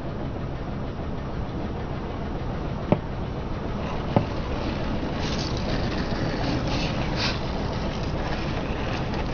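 Car tyre rolling over and crushing small plastic bottles: a steady low rumble, two sharp cracks about three and four seconds in, then a couple of seconds of crackling as the plastic gives way.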